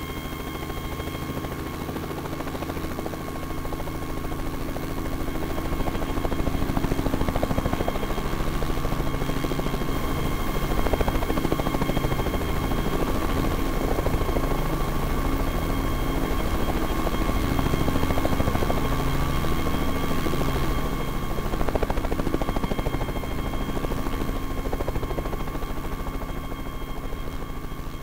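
Helicopter flying with a steady turbine whine over a fast beat of rotor blades. It grows louder over the first few seconds, holds, then eases off slightly toward the end.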